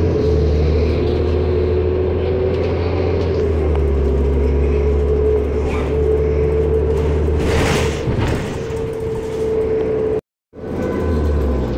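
City transit bus driving, heard from inside the passenger cabin: a steady low engine drone with a constant whine over it. A short hiss about eight seconds in, and the sound cuts out for a moment near the end.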